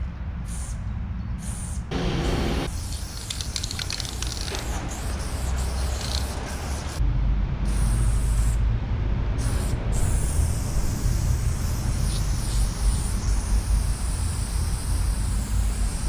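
Aerosol spray-paint can hissing in bursts as paint is laid on a wall, with short breaks between sprays. A low rumble underneath grows louder about halfway through.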